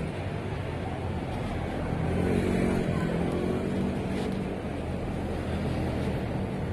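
Road traffic: a motor vehicle's engine running close by, getting louder about two seconds in and then easing off.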